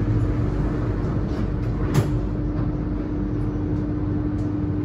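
Alstom Metropolis C830C metro train standing in a tunnel, its onboard equipment giving a steady hum over a low rumble. There is one sharp click about two seconds in.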